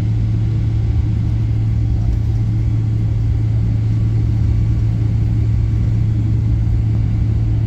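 Airliner cabin noise: a steady low rumble of the jet engines and airflow, with an even low hum underneath that does not change.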